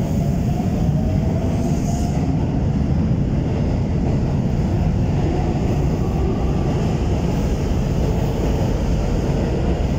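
Keikyu 600 series electric train pulling out of a station, its wheels rumbling on the rails and its traction motors whining with a rising pitch as it gathers speed.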